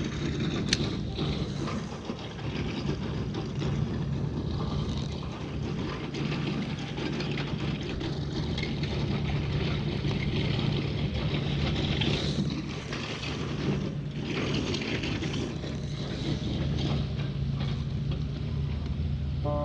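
A steady low engine hum under continuous wind and surf noise.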